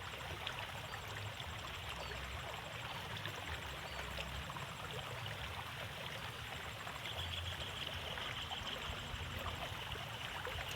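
Water flowing and trickling steadily along a narrow rice-field irrigation ditch.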